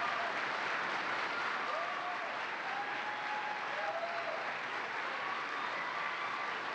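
Large audience applauding steadily, a dense sustained clapping of many hands.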